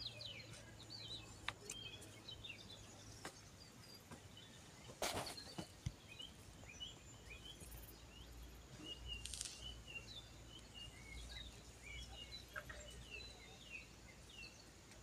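Faint, busy chirping and twittering of small birds, many short quick calls over a quiet outdoor hush. A couple of brief scuffs, about five and nine seconds in, come from hands working loose garden soil while planting seedlings.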